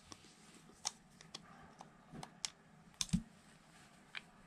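Scattered faint clicks and ticks of a T10 Torx driver and small steel screws as the optic cover plate screws are backed out of a Springfield Prodigy DS pistol slide, with a louder pair of clicks and a soft knock about three seconds in.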